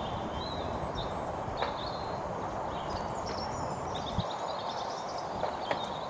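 Steady outdoor background noise with faint, scattered high bird chirps and a few soft knocks.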